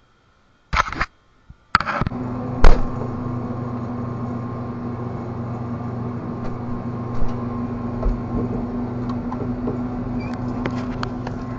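Two brief noises, then a sharp click a little under three seconds in, after which a steady low machine hum with a constant low tone sets in and runs on.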